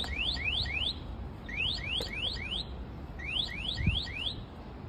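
Electronic alarm sounding in bursts of four or five quick rising chirps, the bursts repeating about every second and a half. A dull low bump comes just before four seconds in.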